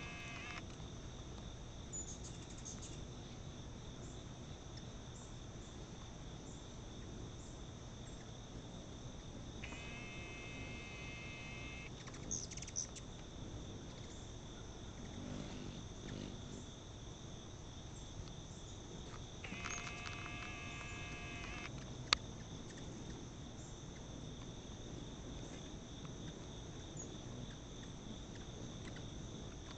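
Steady insect chorus singing at two high, even pitches. Three times, about ten seconds apart, a chord of steady tones sounds for about two seconds and cuts off. A single sharp click comes about two-thirds of the way through.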